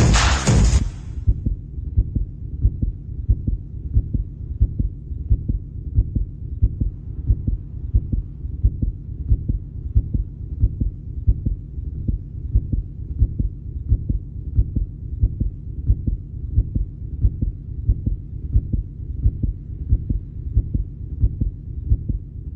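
Music cuts off about a second in. A low, heartbeat-like thudding pulse follows, steady at about one and a half beats a second.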